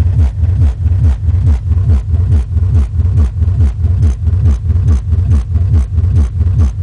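Car sound system playing bass-heavy music loud, deep bass thumps pulsing about three times a second, each falling in pitch.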